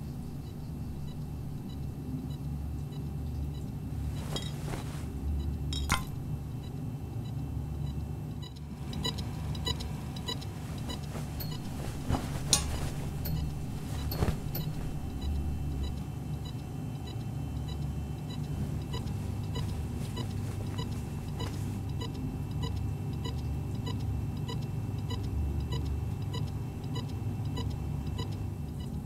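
Low steady machine hum in a small room, with a few sharp clicks, and from about a third of the way in a short electronic beep that keeps repeating at an even pace.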